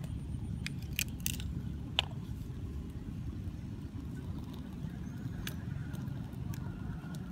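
A few sharp clicks and crackles as a small fire of dry sticks is lit with a lighter, over a steady low rumble.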